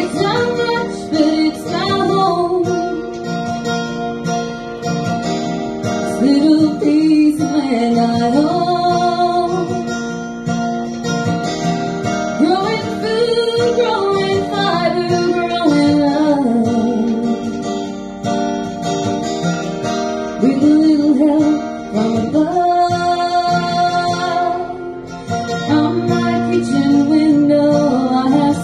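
A woman singing to her own strummed acoustic guitar, performed live through a microphone, the sung phrases breaking off briefly a little before the end.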